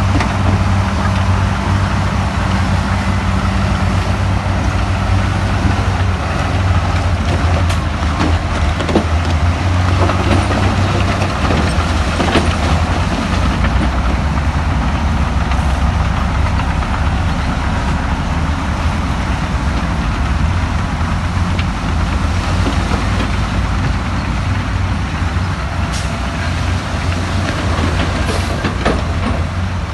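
Heavy diesel earthmoving machine running steadily, with a deep engine drone and a few sharp knocks scattered through.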